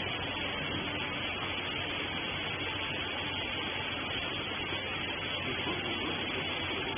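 Horizontal bagging baler running, giving a steady, even machine noise with a low hum.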